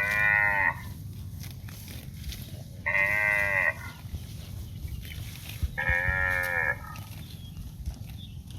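Cow mooing three times, short calls a few seconds apart, each slightly bending in pitch.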